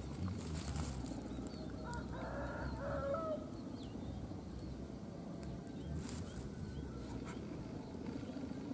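Green junglefowl giving one short call about two seconds in, over a steady low rumble.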